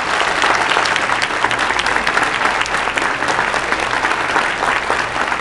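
Audience applauding steadily: many hands clapping at once, a dense spread of claps without a break.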